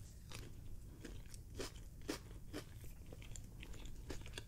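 A person chewing a mouthful of burger with mouth closed, close to the microphone: faint, irregular chewing clicks, a few a second.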